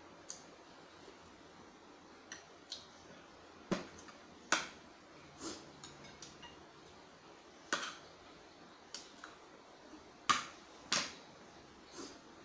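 Metal spoon and fork clinking against a soup bowl and a rice plate while eating: short, irregular clinks about once a second, the loudest about four and a half and ten seconds in.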